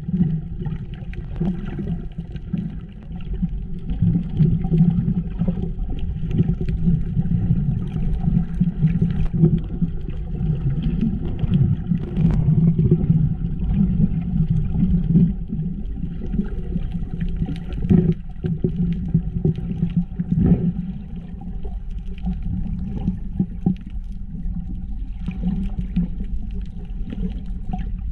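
Muffled water noise recorded by a camera held just below the sea surface: a steady low rumble with gurgling and a few sharp clicks.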